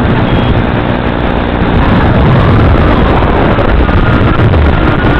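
Brushless motors and propellers of a 240 mm FPV racing quadcopter running hard in flight, a dense buzzing whine whose pitch rises and falls with the throttle, getting a little louder about two seconds in.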